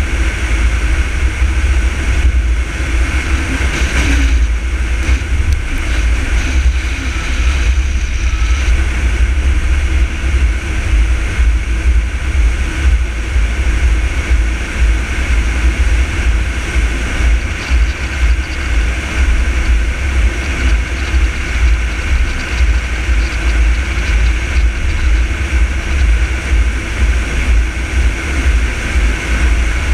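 Car driving steadily at road speed: a constant low rumble of wind buffeting the microphone over engine and tyre noise.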